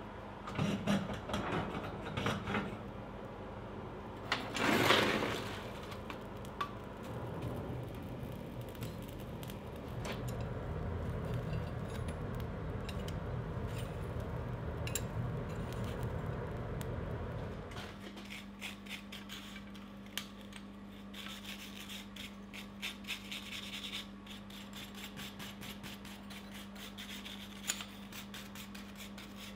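Coal being raked in a blacksmith's coal forge, with a few knocks and a short loud burst of noise about five seconds in. The forge fire then rushes steadily while the steel handle heats to oxidize its bare filed surface. About eighteen seconds in the rushing stops, and a steel wire brush scrubs the hot handle on the anvil in quick scratchy strokes, over a steady low hum.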